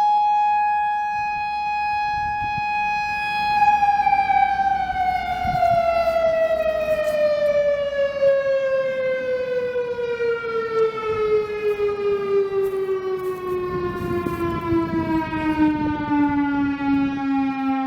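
Federal Signal EOWS 612 electromechanical outdoor warning siren sounding a steady tone. About three and a half seconds in it begins a long, even fall in pitch as it winds down after being switched off at the end of its tornado-drill test signal.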